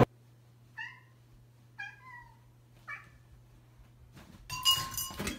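Domestic cat giving three short meows about a second apart. A louder stretch of mixed noise follows near the end.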